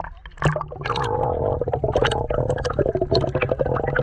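Water heard through an action camera's microphone plunged underwater. A splash about half a second in gives way to muffled gurgling with a dense crackle of fine clicks.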